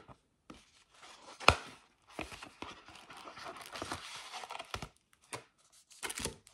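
Paper and card rustling and crinkling as a folded paper CD sleeve is opened and its insert and disc are slid out, with a sharp tap about a second and a half in and a few lighter knocks near the end.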